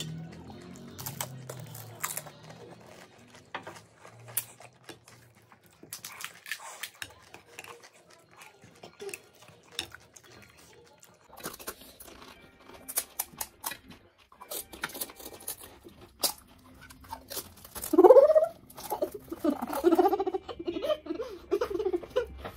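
Crisp hollow panipuri shells cracking as fingers poke them open and crunching as they are bitten and chewed, in many short sharp clicks. About eighteen seconds in, a louder wavering pitched sound comes in for a few seconds.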